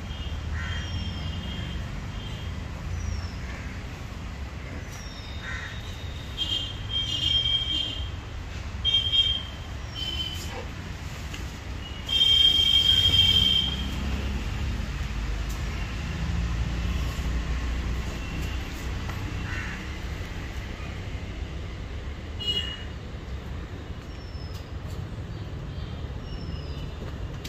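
Birds calling: short high chirps and several high squealing calls, the loudest lasting about a second and a half midway, over a steady low rumble.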